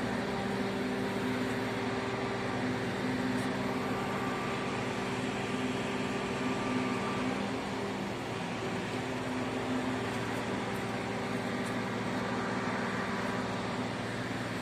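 Steady drone of machinery running on a construction site, with a few held low tones over an even rushing noise.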